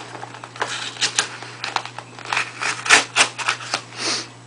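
A pocket knife cutting the tape on a cardboard package and the box being handled. It makes a run of irregular clicks and scrapes, with a longer scraping rasp about four seconds in.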